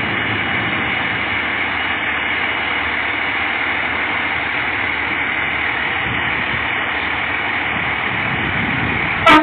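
Fire engine's diesel engine idling steadily on a ladder truck. A short, loud blast comes just before the end.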